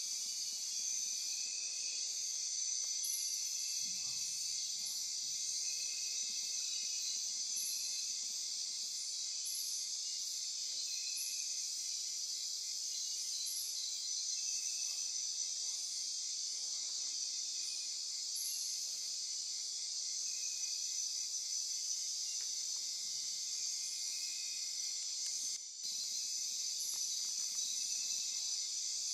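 Nocturnal Amazon rainforest insect chorus: a dense, steady, high-pitched buzzing and trilling, with a short, even higher chirp repeating about every second and a half. The chorus briefly drops out for a moment near the end.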